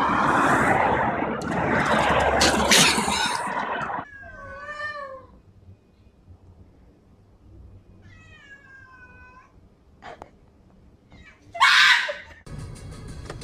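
A cat meowing: two drawn-out, wavering meows a few seconds apart, then a short, loud, harsh screech near the end. These follow a first few seconds of loud noise with knocks.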